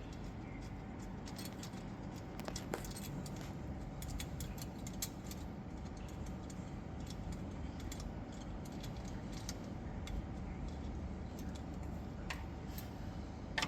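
Faint, scattered metallic clicks and taps of hand work on a UTV's starter motor and its mounting bolts, over a steady low background rumble.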